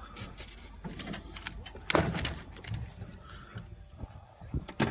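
Irregular clicks, knocks and rustling of handling inside a small aircraft cockpit as its occupants begin to climb out, with a sharp knock about two seconds in and another near the end.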